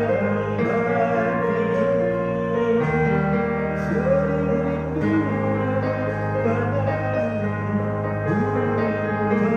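A man singing into a microphone over a backing track with held bass chords, amplified through a rented PA sound system. The bass chord changes about three seconds in and again about five seconds in.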